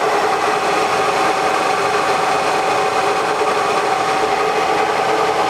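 Manual lathe running at about 720 rpm while its insert takes a light facing cut across the end of a spinning bar. It is a steady machine hum with two steady tones over an even noise.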